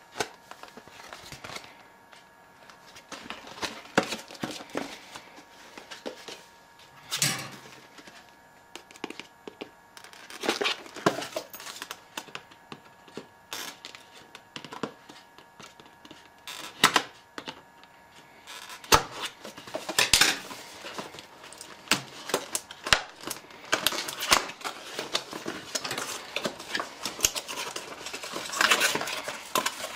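Cardboard box and paper inserts being handled and opened: scattered rustling, sliding and tapping of cardboard and paper, busier in the second half.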